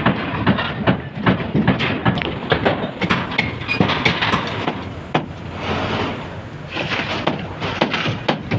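Irregular knocking and clatter of construction work, several sharp knocks a second over a steady background rumble.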